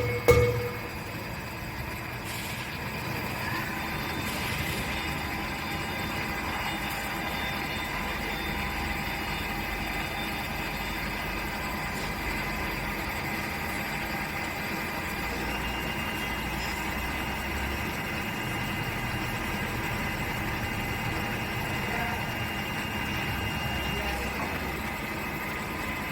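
CNC machine running on an electric motor housing: a steady machine whine made of several held tones over a noisy hum, with one of the high tones shifting to a lower pitch about halfway through. A sharp metallic knock right at the start.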